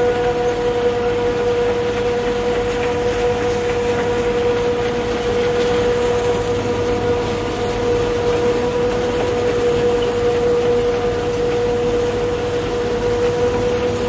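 CLAAS Jaguar 840 forage harvester running steadily while chopping maize: a loud, constant mechanical whine over steady engine noise.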